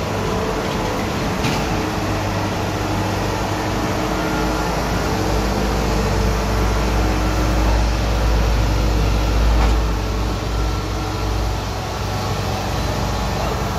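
Kubota DC60 combine harvester's diesel engine running steadily, a constant loud hum with no change in speed.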